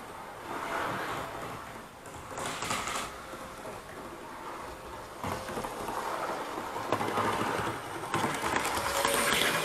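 OO gauge model train running on sectional track, a rattly mechanical noise with a few clicks, getting louder over the last few seconds as it approaches.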